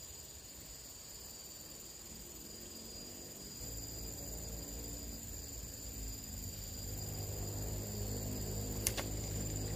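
Insects trilling steadily in high, unbroken tones by a stream. A low droning hum comes in about a third of the way through and grows louder, and there is a single sharp click near the end.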